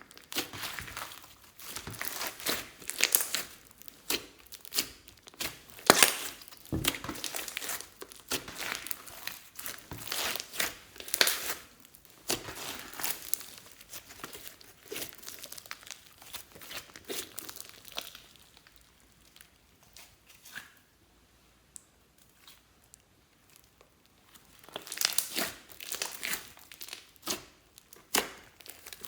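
Slime being kneaded, stretched and squeezed by hand: irregular sticky crackling and popping. It goes almost quiet for several seconds about two-thirds of the way through, then the crackling starts again near the end.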